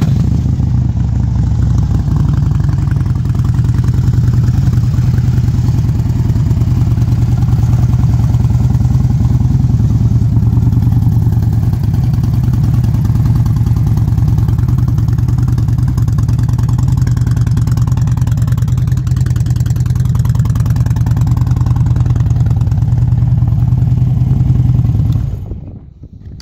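2007 Harley-Davidson Street Glide's Twin Cam 96 V-twin, fitted with Vance & Hines exhaust pipes, idling steadily just after a start-up. It stops near the end.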